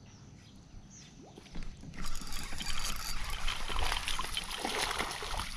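Water splashing and churning at the surface. It is faint at first, then from about two seconds in it turns into steady, fluttering splashing: a small bass hooked on a topwater popper, thrashing beside the kayak.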